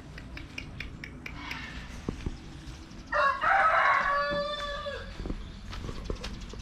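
A rooster crowing once, a single call of about two seconds starting about three seconds in, dropping in pitch at its end.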